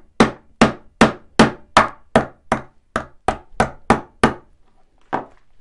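Small hammer tapping a steel pin punch in quick, even strokes, about three a second, driving the blade pivot pin out of a car flip key. The tapping stops a little after four seconds, with one last tap near the end.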